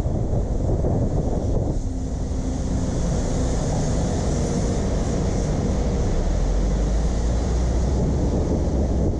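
Steady road and wind noise from a moving car, heavy in the low rumble, with faint brief tones about two seconds in.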